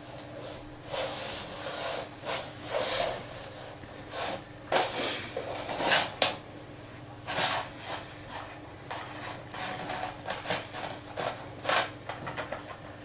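Irregular clicks, knocks and short rubbing sounds of objects being handled, over a steady low hum.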